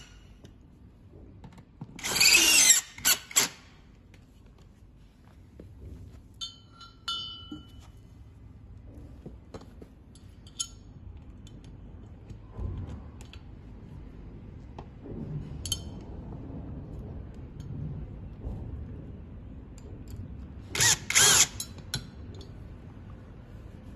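Power drill-driver whining in short spurts as it drives screws into a furniture base, once about two seconds in and again near the end. Between the bursts come quiet clicks and handling of a metal leg and its mounting plate.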